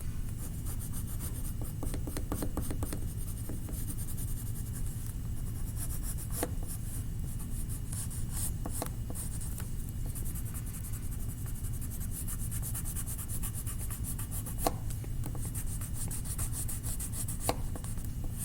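A brown colouring stick rubbing back and forth on paper in quick, scratchy strokes, colouring over drawn tree branches. A few sharp clicks are scattered through it, over a steady low hum.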